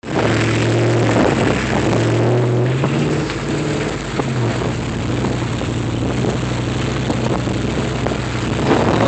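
Vehicle engine running steadily while driving off-road, a low hum over a haze of tyre and wind noise; the engine note drops back about four seconds in and carries on more quietly.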